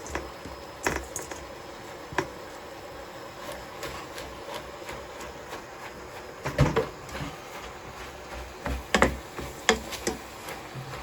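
A cooking utensil knocking and scraping against a pan as spinach is stirred in, in scattered irregular clicks and clacks, the loudest cluster a little past the middle and a few more near the end.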